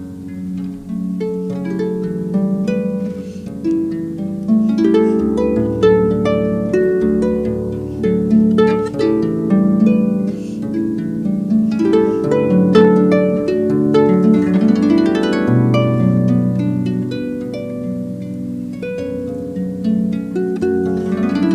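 Concert pedal harp played solo: a plucked melody and chords over low bass notes, the strings ringing on, with an upward run of notes about fifteen seconds in.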